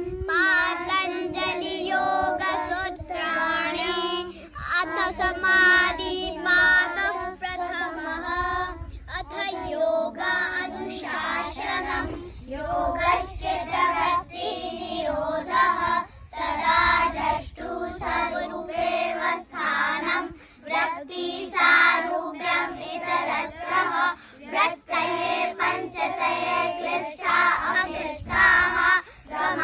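A group of children singing a prayer together in unison.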